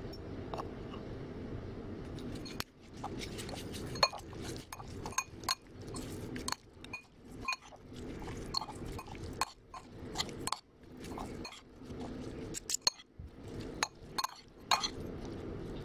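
Metal spoon and fork clinking and scraping against a bowl as minced beef is tossed with sliced shallots. The clinks come irregularly, many per second, starting about three seconds in after a steady low hum.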